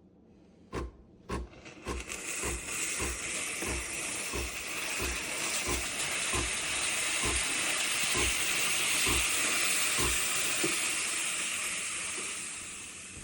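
Espresso machine steam wand hissing, with the machine's pump thudding about twice a second underneath. The hiss builds over the first couple of seconds and fades away near the end.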